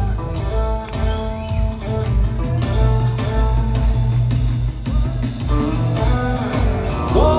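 Live rock trio playing an instrumental stretch between sung lines: guitar over bass and drums.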